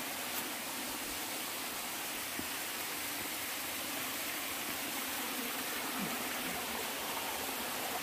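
Steady rushing hiss of a waterfall's falling water, even throughout.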